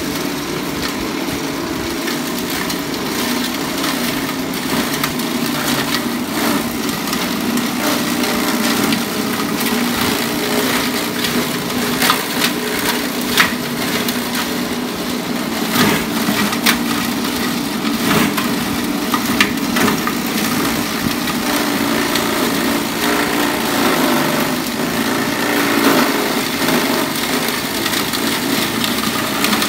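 Small grass chopper, belt-driven by an electric motor, running steadily while fresh grass is fed in and cut. A few sharp cracks stand out from the steady noise in the middle.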